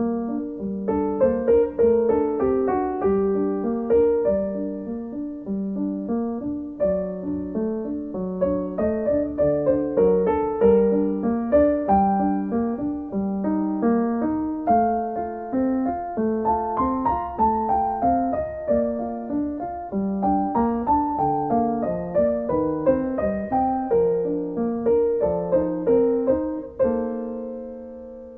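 Background piano music: a flowing melody of single struck notes over a repeating lower line.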